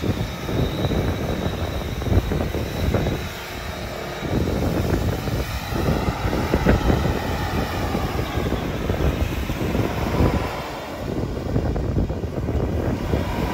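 A vehicle's engine running loud and unevenly, its level rising and falling, with a brief drop about three seconds in.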